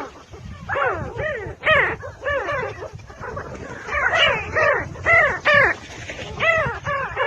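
Several birds calling together in a rapid, overlapping series of short, harsh, arched notes.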